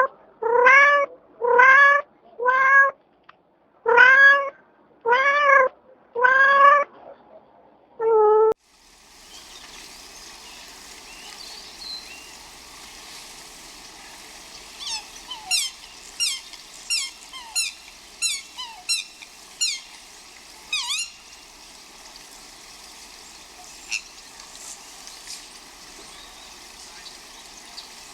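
A cat meowing about eight times in quick succession, each meow rising and falling in pitch. The sound then cuts to an outdoor background, where a songbird sings a run of quick, downward-sweeping chirps, about two a second.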